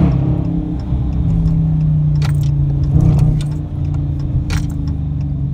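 Dodge Challenger's Hemi V8 engine and exhaust running at a steady pitch, swelling briefly about three seconds in. A few sharp clicks or rattles sound over it.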